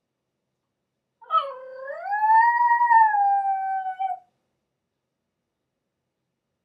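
A small dog left home alone howling: one long howl of about three seconds that dips at the start, then rises and holds before sagging slightly at the end.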